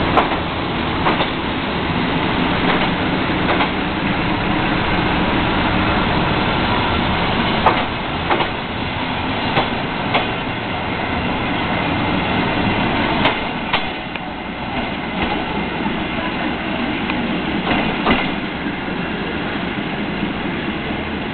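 Passenger coaches of a departing train rolling past, steel wheels clicking over rail joints at irregular intervals over a steady rolling noise, growing a little fainter in the second half.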